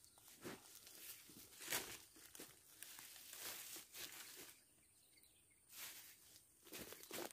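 Faint, irregular rustling and crinkling of plastic groundsheet and tent fabric being handled, with a few louder scuffs, the loudest about two seconds in.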